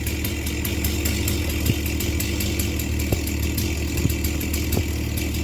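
Small two-stroke yard-tool engine idling steadily while it warms up after a cold start, with a few faint clicks.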